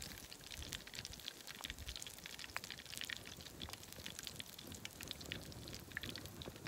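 Faint, irregular crackling and popping from a pan of oil bubbling on a bed of wood coals, hot enough to fry.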